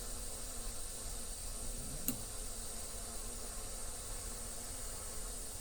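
Bernzomatic butane micro torch running with a steady high hiss from its flame, with one sharp click about two seconds in.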